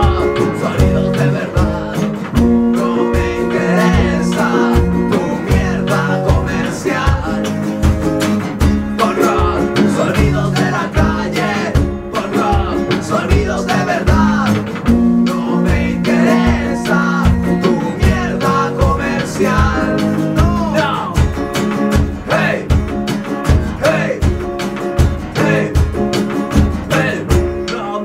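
Rockabilly band playing an instrumental break: an electric guitar lead line over a strummed acoustic guitar, driven by a steady quick beat on a stand-up drum.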